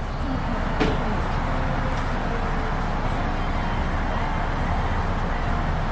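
Steady low rumble of a car sitting at idle, heard from inside with the window down, with a single sharp click about a second in.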